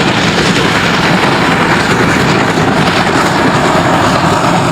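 Loud, steady rushing noise spread evenly from low to high pitches, with no clear tone, that cuts off suddenly at the end.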